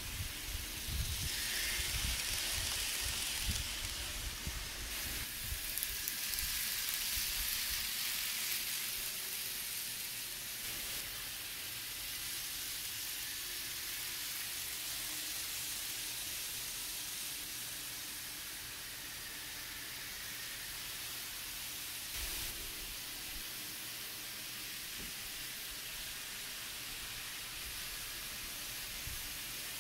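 Several model trains running on sectional track: a steady hissing whir of wheels on rail and small motors, louder in the first ten seconds, with a few low thumps near the start.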